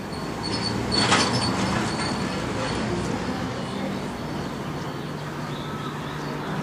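Street background noise with a steady low hum and a short, louder noise about a second in.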